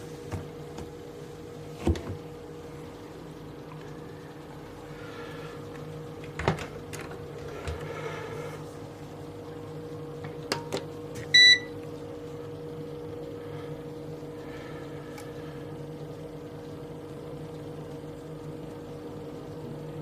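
Logik L612WM13 washing machine's control panel giving one short electronic beep about eleven seconds in as its Power button is pressed, over a steady low hum. A few sharp knocks come earlier, about two and six seconds in.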